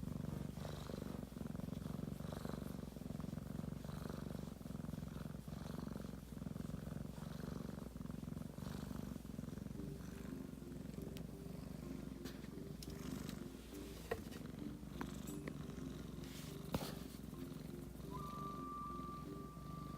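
Domestic cat purring steadily, a low continuous rumble. A steady, high whistle-like tone comes in near the end.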